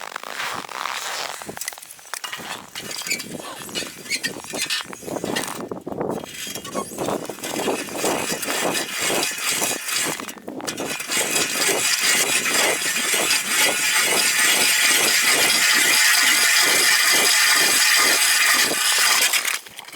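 River ice being cut open at a fishing hole clogged with slush ice: irregular scraping and chopping strokes for about ten seconds, then a loud, steady grinding from about eleven seconds in that stops suddenly near the end.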